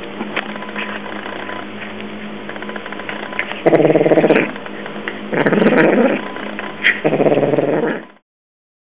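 Domestic cat growling over raw meat as it eats, in three loud growls of under a second each, about four, five and a half and seven seconds in, with short clicks of chewing around them. The growling is the cat guarding its food while eating.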